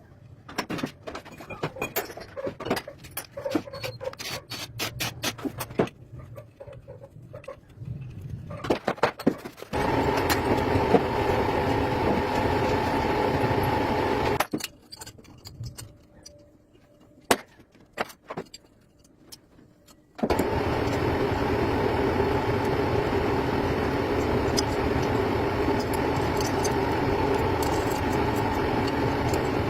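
Metal tools clinking and rattling, then a motor running steadily in two stretches, each starting and stopping abruptly, with a quiet gap broken by a few clicks between them.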